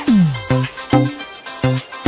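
Electronic DJ-remix dance music with no singing. A deep bass note glides down in pitch at the start, over short bass stabs on a steady beat of about two a second.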